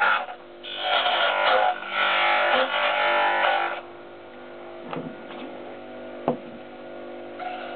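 Wood lathe turning a small mahogany blank, a hand tool cutting the spinning wood in bursts for about three seconds. Then the lathe runs on without the tool, with two sharp knocks near the end.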